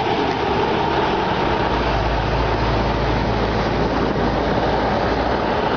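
Tractor-trailer passing close by at highway speed: loud, steady diesel engine and tyre noise, with a deeper low rumble building about two seconds in as the rig goes past.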